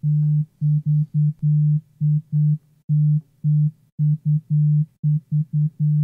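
An iPhone's vibration motor buzzing in an irregular rhythm of short and longer pulses, about three a second: playback of a custom vibration pattern that was just tapped in by hand.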